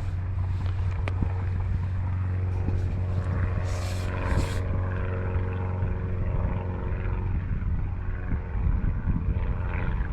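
A steady low mechanical hum with several steady tones over it, and wind rumbling on the microphone; two short hisses come about four seconds in.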